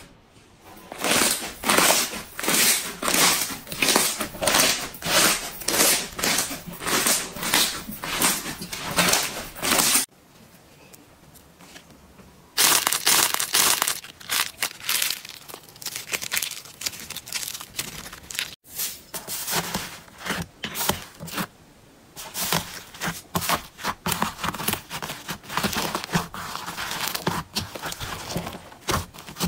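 Slime being squeezed and pressed by hand, giving repeated crackling, popping bursts a few times a second, with a short lull about a third of the way in.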